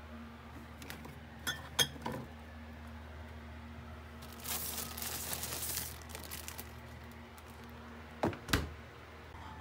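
Items moved inside a refrigerator: glass bottles clink twice early on, then a plastic bag rustles about halfway through. Two thuds near the end as the fridge door shuts. A steady low hum runs underneath.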